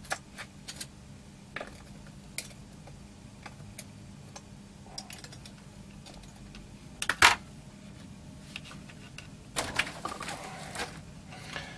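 Scattered light clicks and taps of a small chip and parts being handled on a workbench as a PLA chip is swapped into a Commodore C16 board, with a sharp double click about seven seconds in and a cluster of taps near the end. A faint steady low hum runs underneath.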